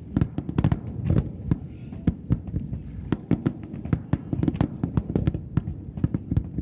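Aerial fireworks going off in quick succession: an irregular string of sharp bangs and crackles, several a second, over a low rumble.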